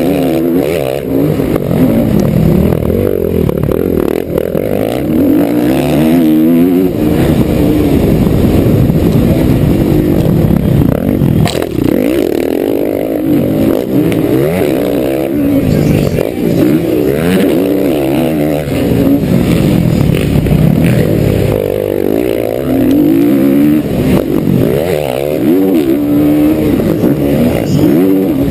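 Motocross bike engine at race pace, heard close up from the bike itself, its revs climbing and dropping over and over as the rider works the throttle and gears. There is one sharp knock about twelve seconds in.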